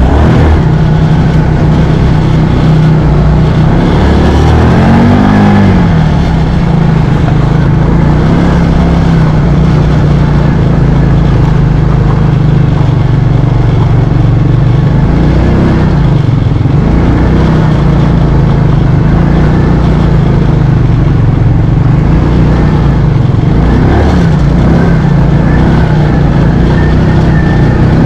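ATV (quad) engine running close to the microphone as it drives a muddy forest trail, rising and falling in revs a few times as the rider works the throttle.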